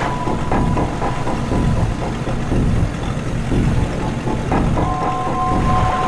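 Tense background music score: a regular low pulsing beat under two high held tones, which drop out about a second in and come back near the end.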